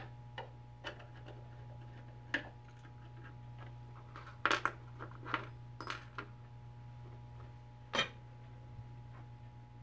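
Light metallic clinks and taps of a screwdriver, screw and small metal end bracket being handled while taking the magnetic DRO scale off the lathe bed, several close together about four to six seconds in and one sharp clink about eight seconds in. A steady low hum runs underneath.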